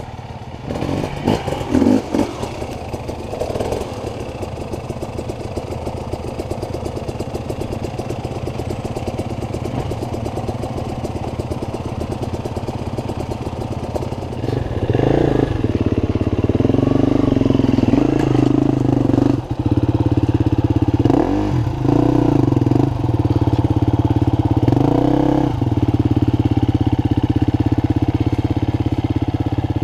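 KTM enduro motorcycle engines running on a steep dirt trail, steady at first, then clearly louder from about halfway as a bike climbs. A few short revs come in the second half.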